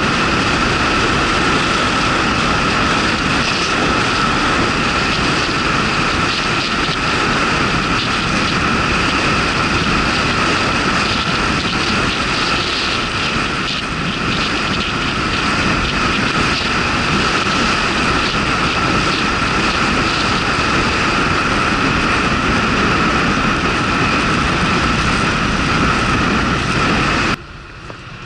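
Honda Super Cub 110's small single-cylinder four-stroke engine running at a steady cruise under heavy wind rush on the microphone. The sound cuts off abruptly near the end.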